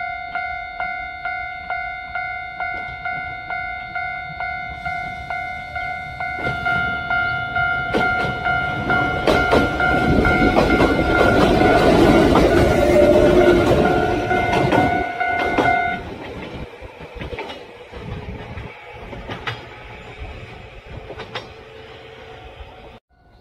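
Japanese level-crossing bell ringing in even strokes about twice a second while a Kintetsu electric train passes close by, wheels clacking over the rail joints. The train is loudest about halfway through; the bell stops about two-thirds of the way in and the train's rumble and clacks fade.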